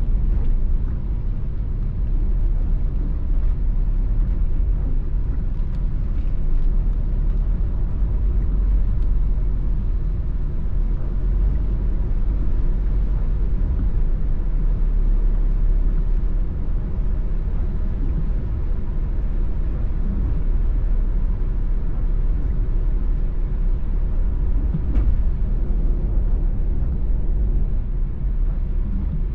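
Steady low rumble of a car driving on wet roads, engine and tyre noise heard from inside the cabin, with a single light click about 25 seconds in.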